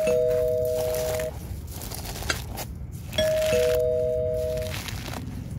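Two-note ding-dong chime sound effect from a subscribe-button animation, sounded twice about three seconds apart: a higher note, then a lower one joining it, both held about a second. Under it comes the soft crackle of eggshells being crushed by hand.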